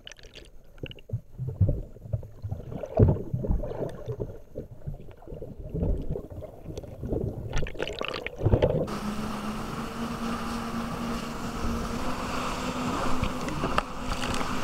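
Muffled sloshing, gurgling and knocks heard from under the water while seaweed is cleared from a jet ski. About nine seconds in this cuts to a jet ski engine running steadily at speed, with a steady low drone over wind and spray.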